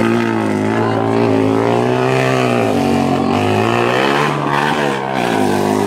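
A motorcycle tricycle's engine revving hard in an off-road race, its pitch rising and falling. It drops back twice, about three seconds in and again near the end, then picks up.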